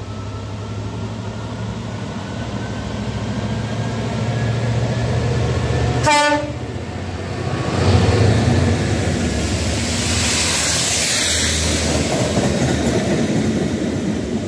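A GBRf locomotive hauling a railhead treatment train of tank wagons passes through a station. Its engine grows louder as it approaches, it sounds one short horn blast about six seconds in, and it is loudest as it goes by about eight seconds in, followed by the steady rumble of the tank wagons rolling past.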